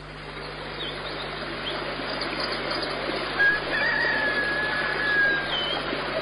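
Birds calling over a steady rushing noise that swells in: short chirps and one long whistled call of about two seconds halfway through, with a low steady hum underneath.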